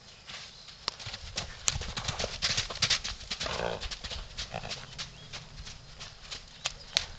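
Hoofbeats of a young horse moving loose around a sand arena at a trot, a quick run of dull thuds and knocks on the sandy footing.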